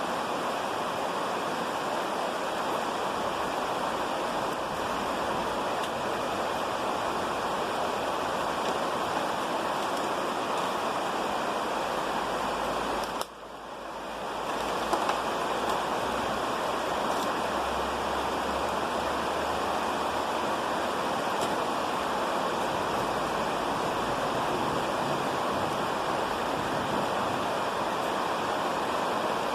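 Steady rain falling, an even hiss. It drops out briefly about thirteen seconds in, then returns.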